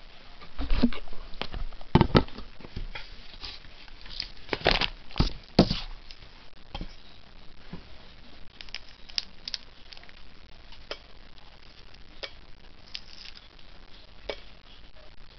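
Eggshell of a soft-boiled egg being cracked and peeled by hand over a metal bowl: several louder knocks and crackles in the first six seconds, then scattered small clicks and crinkles as shell pieces come away.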